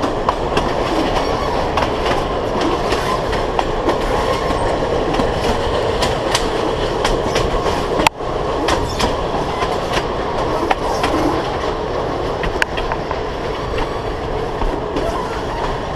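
Narrow-gauge steam train carriages rolling along the track: a steady rumble with irregular clicks and clacks of the wheels over the rails. The sound breaks off for an instant about halfway through.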